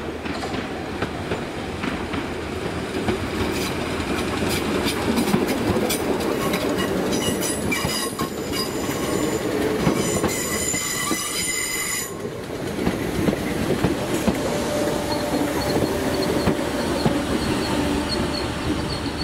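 Merseyrail electric multiple-unit train running at the platform, its wheels rumbling steadily and clicking over the rail joints. From about seven seconds in, a high wheel squeal rises over the clicks and cuts off suddenly near the middle. A fainter, wavering squeal follows near the end.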